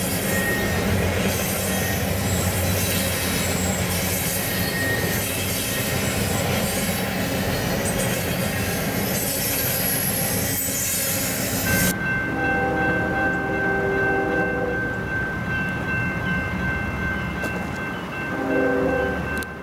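Freight train cars rolling past with steady wheel-on-rail noise and thin wheel squeals. About twelve seconds in, the sound changes abruptly to a quieter scene: a locomotive horn sounds a chord, once for a couple of seconds and again briefly near the end, over a steady high tone.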